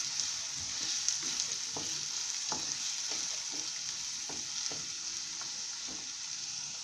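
Chopped onions sizzling in hot oil in a nonstick kadai as they are sautéed, with a wooden spatula stirring them and scraping and tapping lightly and irregularly against the pan.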